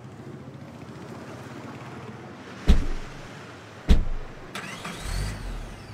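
Two car doors of a Skoda Octavia slam shut, about a second apart. Near the end the engine is started, with a short rising whine and a low rumble as it catches.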